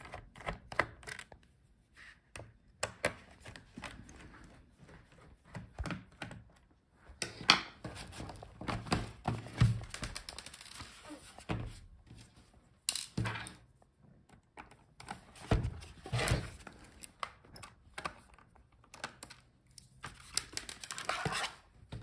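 Irregular clicks, taps and knocks from hands and a screwdriver working on a gaming laptop's bottom case and shifting the laptop about on a desk. The heaviest knocks come about a third of the way in and again past the middle.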